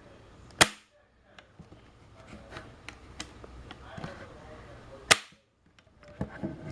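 Toy Civil War musket cap gun firing twice: two sharp cap cracks about four and a half seconds apart, with faint clicks of handling between them.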